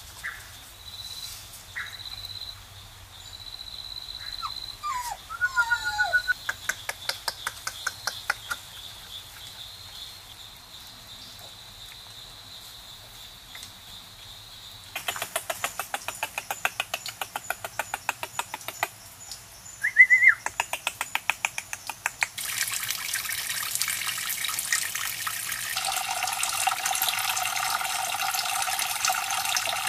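Water trickling and splashing steadily from a pipe into a small pool, starting about three-quarters of the way in. Before it, birds chirp and stretches of fast clicking come and go, with a short loud high call about two-thirds in.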